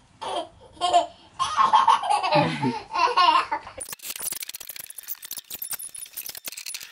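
Laughter and a toddler's voice for the first few seconds, then background music with a busy, clicking beat comes in about four seconds in.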